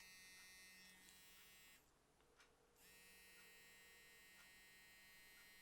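A mobile phone's vibration motor buzzing faintly on an incoming call. It comes in pulses a few seconds long, with a pause of about a second between them.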